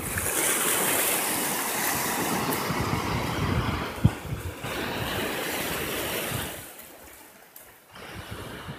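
Small sea waves washing in and foaming over a rocky, shallow shoreline. A brief low thump about four seconds in, and the wash dies down for a second or so near the end.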